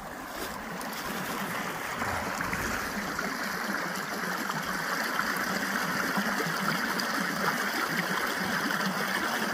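Running water: a steady rushing with no rhythm, swelling slightly over the first couple of seconds and then holding even.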